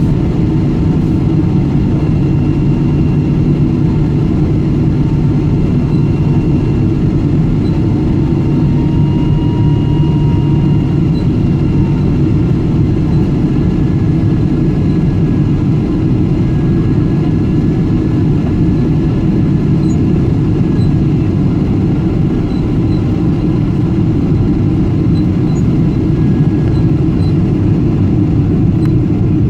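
Steady roar inside a Boeing 777-300 cabin in flight: engine and airflow noise, with a faint steady whine above it.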